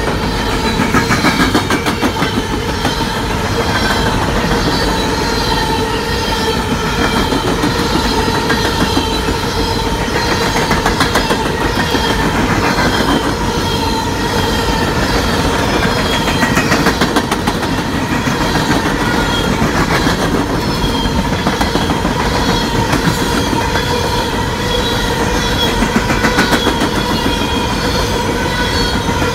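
Empty coal cars of a CSX unit train rolling past close by at speed: a loud, continuous rhythmic clatter of wheels and trucks, pulsing as each car goes by, with a steady high ringing tone running underneath.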